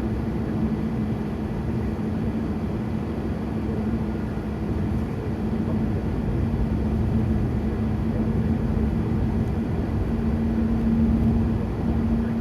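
Steady road and engine noise inside a moving car's cabin: a constant low rumble with a steady hum.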